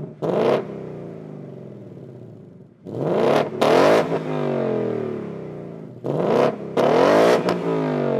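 2018 Ford Mustang GT's 5.0 V8 with its active exhaust in normal mode, free-revved in three sharp blips, the second and third doubled, each time the revs falling back toward idle.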